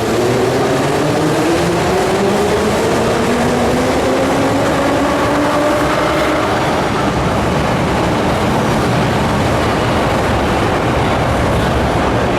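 Moscow Metro train accelerating: the traction motors' whine rises steadily in pitch for about six seconds and then levels off, over a loud, steady running rumble.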